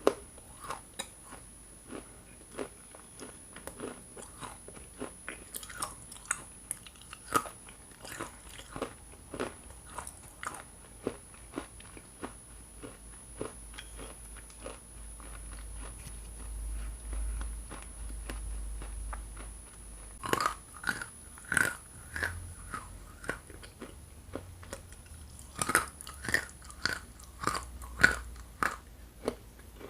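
Close-up biting and chewing of hard chunks of Ural edible clay, giving sharp, crisp crunches like gnawing on stone. The crunches come steadily, with two runs of louder, closer-spaced bites about two-thirds of the way through and near the end.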